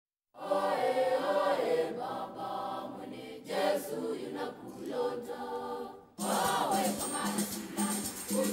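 Background music: a choir singing. About six seconds in it cuts abruptly to different music with a regular pulsing beat.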